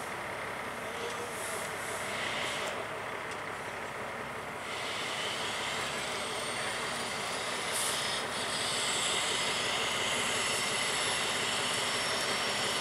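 Heavy truck engine running as it slowly hauls a fishing boat on a hydraulic boat trailer. It gets louder about five seconds in, and a faint high whine slowly rises in pitch after that.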